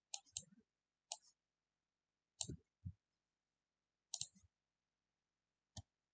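Computer mouse clicks and keyboard keystrokes: about eight short, separate clicks spread out with near silence between them.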